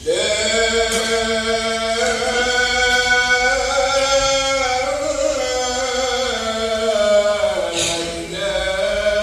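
A muezzin's voice chanting the Islamic call to prayer (adhan), one long drawn-out phrase with the pitch wavering up and down. It breaks off briefly near the end before the next phrase begins.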